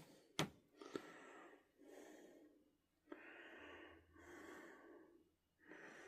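Faint, slow breathing of a man close to the microphone, breaths coming and going about every second and a half, with a sharp click just under half a second in.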